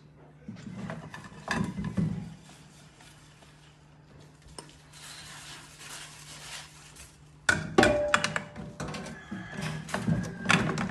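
Dishes washed by hand in a stainless-steel sink: a sponge scrubbing a plate, then ceramic plates and bowls clattering and clinking against each other and the sink. The clatter starts about two-thirds of the way in and is the loudest part, with one plate ringing briefly.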